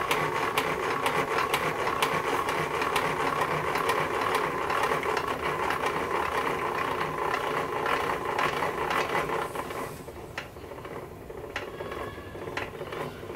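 Height-adjustment crank of a Vevor 12.5-inch benchtop thickness planer being hand-cranked, its crank and screw mechanism giving off a steady clatter of rapid clicks as the cutterhead is lowered. The cranking stops about ten seconds in, leaving a few single clicks.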